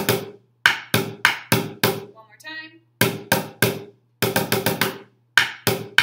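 Drumsticks playing a snare drum cadence on an upside-down plastic bucket: quick runs of sixteenth-note strikes with short pauses between them.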